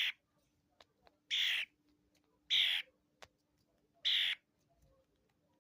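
Baby starling giving harsh, rasping begging calls about every second and a half, each call short. These are a hand-fed nestling's calls for more food.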